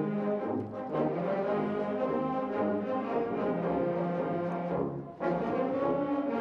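Oaxacan-style banda, a brass band, playing held notes, with a short break about five seconds in.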